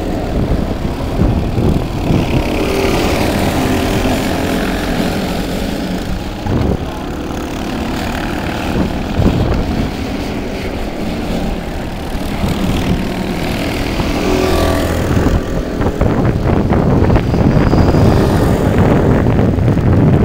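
Several kart engines run hard as the karts race round the circuit. Their note rises and falls as they pass and lift for the corners.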